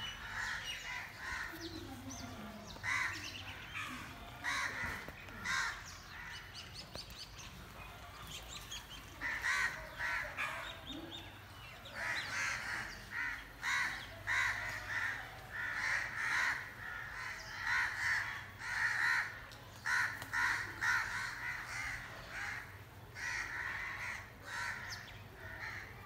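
Crows cawing: a long run of short calls, about one a second, growing thicker in the second half.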